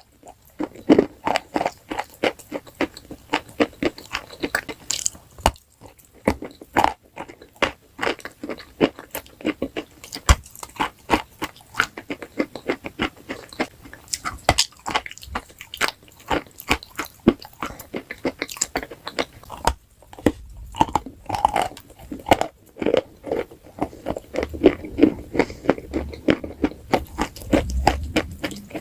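A person biting and chewing crunchy food close to the microphone: a dense run of sharp crackly crunches, pausing briefly twice.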